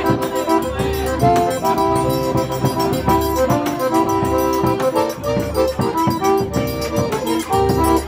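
Piano accordion playing a lively tune in held chords, with a shoulder-slung drum beating a steady rhythm underneath.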